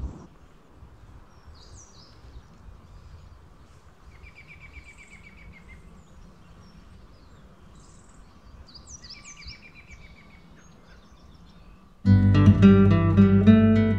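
Birds calling over a faint outdoor background: a few high chirps, and two short trills of rapid repeated notes. About twelve seconds in, acoustic guitar music starts suddenly and loudly.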